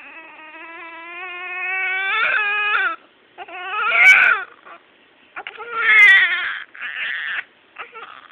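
Newborn baby crying: one long wail of about three seconds that grows louder, then a few shorter cries with short gaps for breath between them.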